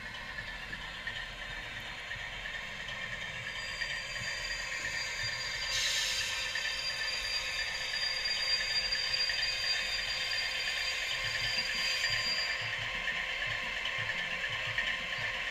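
H0-scale model diesel locomotive running along the layout's track toward the microphone: a steady mechanical clatter of wheels and motor on the rails, which gets louder about five seconds in as the train nears. A thin high whine runs through the middle.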